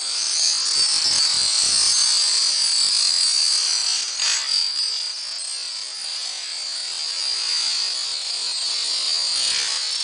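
Hundreds of dominoes toppling in a chain reaction: a dense, continuous clatter of small tiles clicking against one another.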